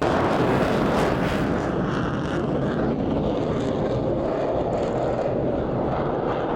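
Jet fighter engine noise, a loud steady rushing sound that cuts in abruptly.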